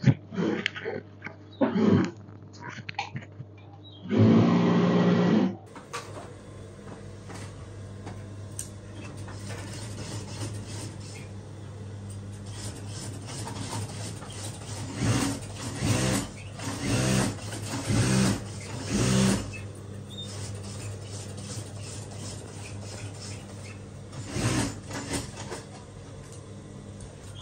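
Overlock (serger) sewing machine stitching in several short bursts, with a steady low hum between the runs.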